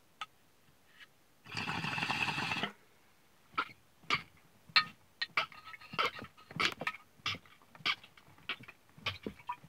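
A man lets out one loud, rough throat sound lasting about a second. It is followed by a string of short clicks and taps.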